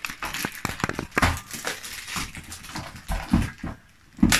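Hard plastic toy train track pieces clicking and knocking together as they are handled, over the crinkle of a plastic parts bag. A louder sharp knock comes near the end.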